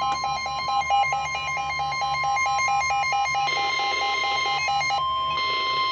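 Several NOAA weather radios sounding at once for a severe thunderstorm warning: one gives the steady 1050 Hz warning alarm tone while another beeps rapidly over it. The beeping stops about five seconds in, and another radio's alert tone joins just before the end.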